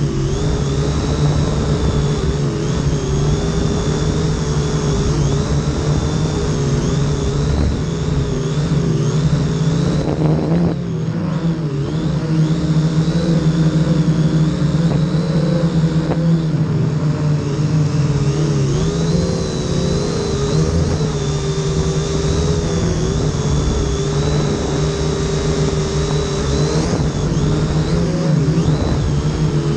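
Huanqi H899b quadcopter's electric motors and propellers buzzing close up, several pitches wavering up and down together as the motor speeds change in flight. The sound dips briefly about eleven seconds in.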